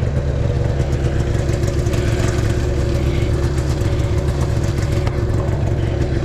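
Arctic Cat Jag snowmobile's two-stroke engine running at a steady speed.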